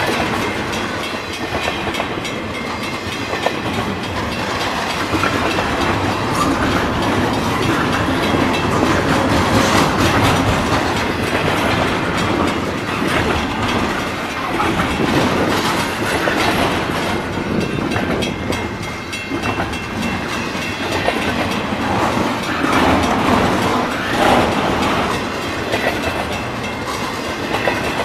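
Double-stack intermodal container train rolling past at close range: a steady rumble with the clickety-clack of its well cars' wheels on the rails.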